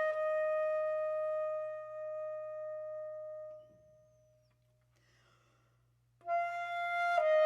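Solo flute holding one long note that fades away about three and a half seconds in, followed by a near-silent pause of roughly two seconds before the flute comes back in with a new phrase near the end.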